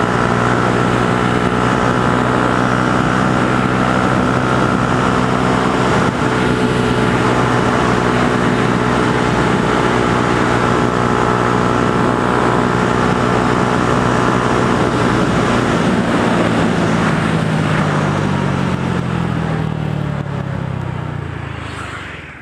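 Yamaha YZF-R125's single-cylinder four-stroke engine, fitted with a Devil aftermarket exhaust, running at a steady cruising pitch while the bike is ridden. After about 16 seconds the engine note falls as the revs drop, and the sound fades out near the end.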